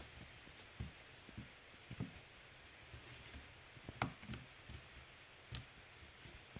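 Soft, irregular clicks and taps of raw potato slices being put into a bowl of spiced batter paste, the sharpest tap about four seconds in.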